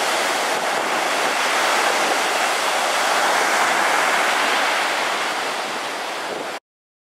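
Sea surf breaking and washing up a sandy beach, a steady rushing wash that cuts off suddenly near the end.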